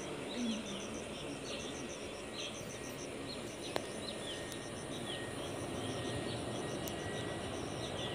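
Insects chirping in regular quick pulse groups and birds giving short falling calls, over the faint, slowly growing rumble of a distant Airbus A320 airliner on final approach. A single sharp click comes a little under four seconds in.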